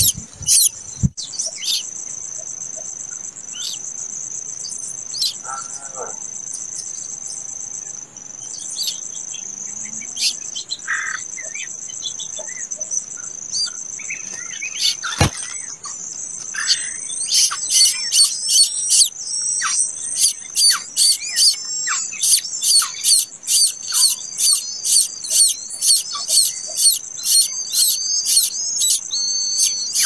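A steady high insect trill runs throughout. From about halfway, nestlings begging for food take over with loud, high, rapidly repeated cheeps, about two a second.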